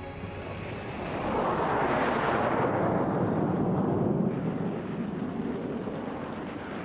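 Jet aircraft passing: a rushing noise swells about a second in and drops in pitch as it goes by, then settles into a lower steady rumble.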